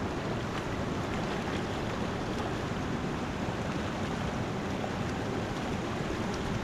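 Mountain river rushing steadily over rocks.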